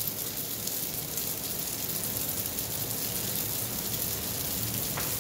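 Garlic noodles sizzling steadily in a hot frying pan, an even hiss with a faint tick near the end.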